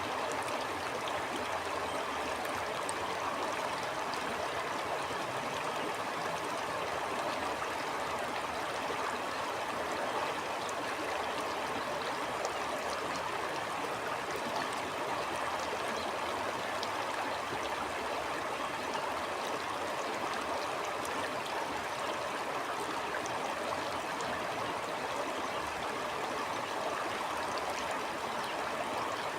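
Stream water flowing steadily over stones, an even, continuous rush with small gurgles.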